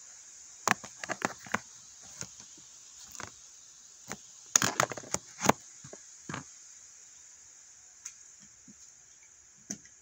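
Irregular sharp cracks and snaps, a quick cluster about a second in and a louder one about four and a half seconds in, with a few single ones later, over a steady high-pitched hiss.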